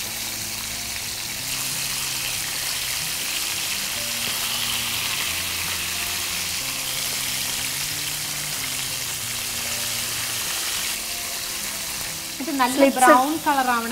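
Flour-coated chicken drumlets deep-frying in a pan of oil over a low flame: a steady sizzle and bubbling.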